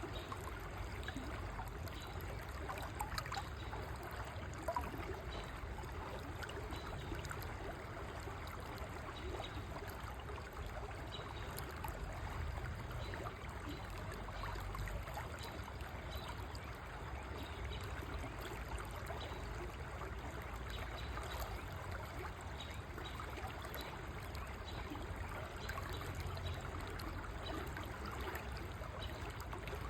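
Small river or stream flowing steadily, its water trickling and gurgling in an even, continuous rush.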